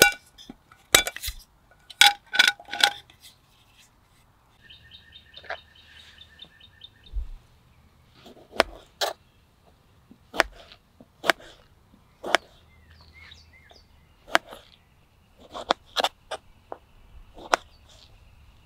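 Metal clinks of a Jetboil skillet and its parts being set on the stove, then a bird chirping in a quick run of notes. After that comes a kitchen knife chopping a tomato on a plastic cutting board, a dozen or so irregular sharp knocks.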